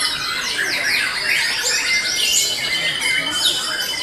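Caged songbirds, white-rumped shamas among them, singing over one another: a dense run of fast whistles and down-sweeping notes, with a held high whistle in the second half.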